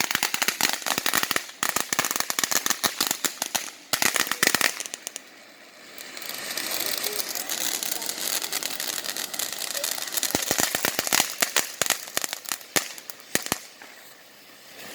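Consumer fireworks crackling: a fast run of sharp pops for about five seconds, then a steady hiss for several seconds, then another run of pops.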